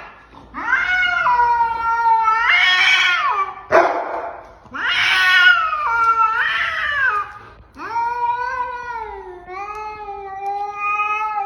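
A cat yowling: three long, drawn-out calls whose pitch bends up and down, with a short rasping noise between the first two.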